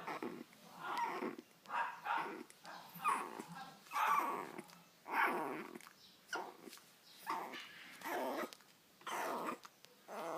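A dog breathing hard: a run of noisy breaths about once a second, unevenly spaced.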